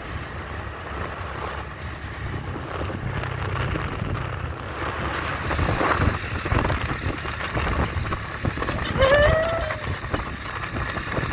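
Wind rushing over the microphone and the low drone of a motor scooter riding along a road. About nine seconds in, a short rising pitched call cuts in over it.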